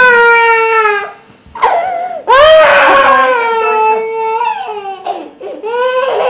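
A baby crying hard in long, loud wails that slowly fall in pitch: one ends about a second in, a second starts just after two seconds, and shorter sobbing cries follow near the end.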